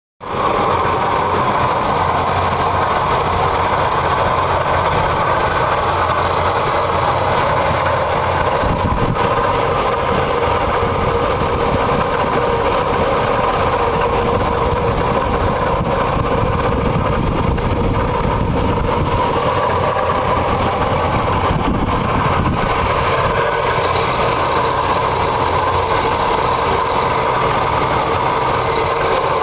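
Oldsmobile 350 V8 running steadily with all accessory belts attached, making a strange noise that the owner is trying to trace.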